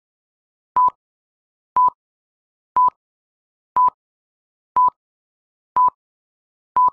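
Film-leader countdown beeps: a short, steady, high beep once a second, seven times, with silence between.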